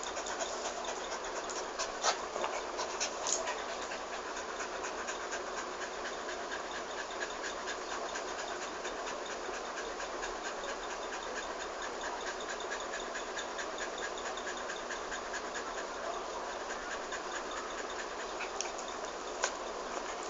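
Small dog panting fast and steadily over a constant hiss, with a few sharp clicks near the start and near the end.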